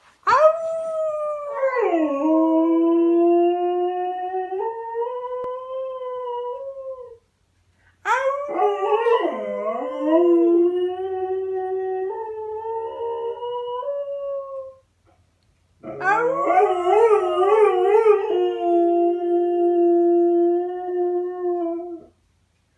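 Dog howling: three long howls of about seven seconds each, separated by short pauses, their pitch sliding and stepping, with a wavering stretch in the last one.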